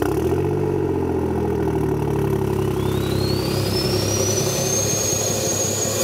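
Toyota GR Yaris's turbocharged three-cylinder engine, fully forged and running a big turbo, having just fired up and idling steadily, its revs easing down a little in the first couple of seconds. A faint high whine rises from about midway and levels off near the end.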